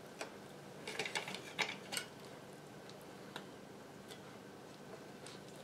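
Light, scattered clicks and taps of a metal rotisserie spit and its prong forks being handled and pushed into a chicken. There is a quick run of clicks about a second in, then a few single ticks.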